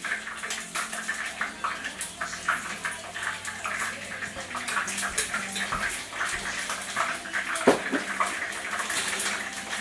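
Tempura-battered chicken wings frying in a skillet of shallow oil: a steady sizzle dotted with frequent crackling pops.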